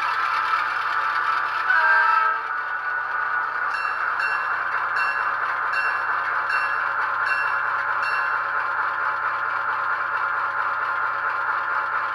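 Model GP28 locomotive's onboard sound system playing a non-turbo EMD 567 diesel idling through its small speaker. A short horn blast about two seconds in, then the bell ringing about twice a second for several seconds.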